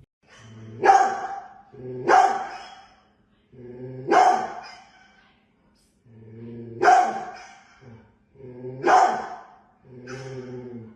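A dog barking six times, one to three seconds apart, each bark starting low and breaking into a louder burst.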